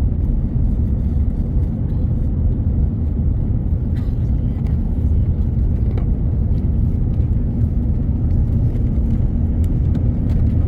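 Steady low rumble of an airliner cabin, with a faint even hum above it.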